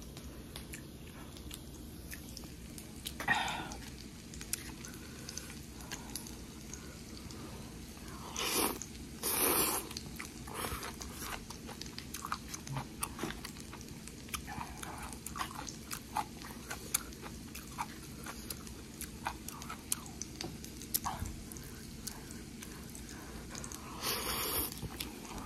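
A person eating instant cup noodles close to the microphone: steady chewing with small wet mouth clicks, and a few short slurps, one near the end as noodles are drawn in.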